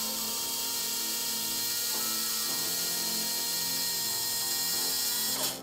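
Sensored brushless RC car motor spinning at full throttle with no load, a steady high whine over a hiss. Its timing is being advanced by hand as it runs. It cuts off sharply near the end as the throttle is released.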